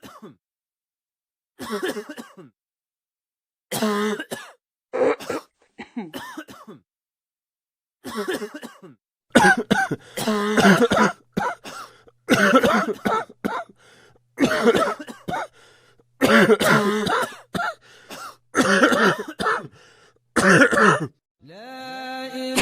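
A person coughing repeatedly in short bouts, a few separate coughs at first, then longer, closer-spaced coughing fits from about halfway through.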